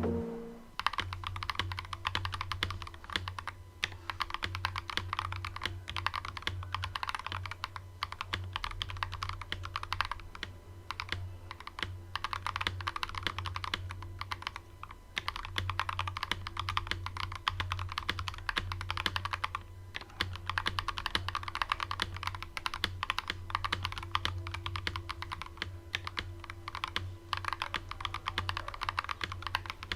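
Typing on an Akko 5075S gasket-mounted 75% keyboard with Akko Crystal Blue full-polycarbonate linear switches, PBT keycaps and a polycarbonate plate. It is a fast, steady stream of keystroke clacks starting about a second in, with a steady low hum underneath.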